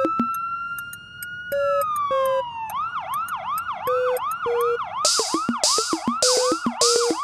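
Intro of a hip hop beat built on a police-style siren: a slow rising and falling wail that switches about two and a half seconds in to a fast yelp, about three and a half cycles a second, over steady ticking percussion and short beeps. Sharp noisy drum hits join the rhythm about five seconds in.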